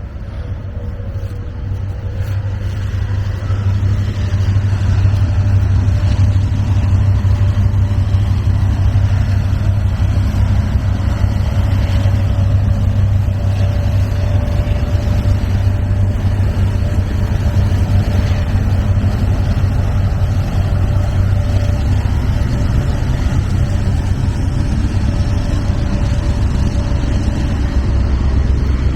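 Diesel locomotives of a CSX freight train approaching and passing, a heavy engine rumble that grows louder over the first few seconds and then stays loud and steady, with a faint steady whine above it.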